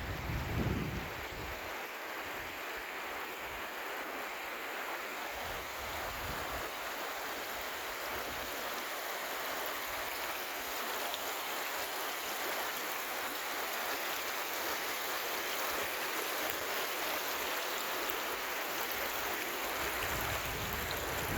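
A stream of water flowing steadily, an even, continuous rush. A brief low rumble of wind on the microphone in the first second.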